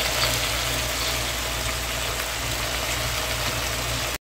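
Pan of pakbet vegetables cooking on a stove: a steady sizzling hiss over a low steady hum, cut off abruptly near the end.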